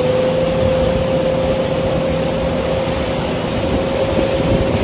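Motorboat engine running steadily while towing a water skier, with one steady tone in its note that rises slightly at the start, over wind and water noise.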